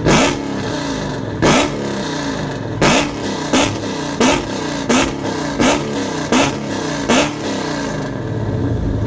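Supercharged LS V8 engine of a modified Dodge Challenger being free-revved hard at full throttle. It gives nine sharp blips that each fall back quickly, the first three spaced wider and the rest coming faster, then it settles to a steady run near the end.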